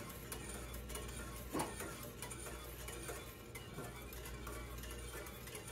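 A wire whisk stirring cream of wheat in a small saucepan: a faint run of light ticks and scrapes against the pan, with one brief louder sound about a second and a half in.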